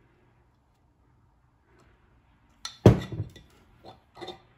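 A loud hard knock with a short clatter about three seconds in, then a few lighter clinks: a screwdriver and a glass wine bottle being handled while prying at the bottle's sealed metal pull-tab cap.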